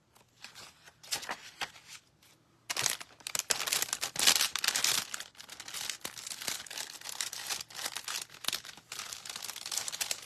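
Paper handling and rustling, then from about three seconds in a continuous dry scratchy rubbing as a white ink pad is rubbed over an embossed cardstock panel.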